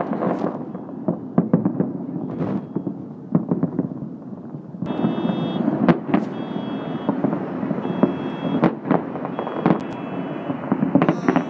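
Fireworks going off in rapid, overlapping bangs and crackles over a steady rumble of noise. From about five seconds in, a faint high beeping tone comes and goes behind the bangs.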